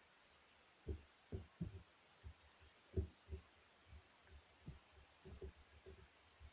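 Faint, muffled, irregular soft thuds and squishes, about a dozen, as marbled slime is pressed and handled by hand.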